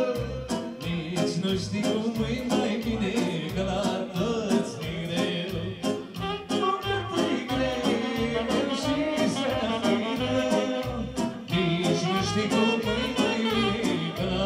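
Dance music with a steady beat and a man singing into a microphone over an amplified band; the sound changes about eleven seconds in.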